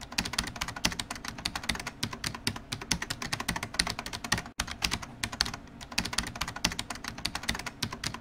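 Rapid keyboard typing clicks, many keystrokes a second, as a typing sound effect for text being typed out on screen, with a brief break about four and a half seconds in.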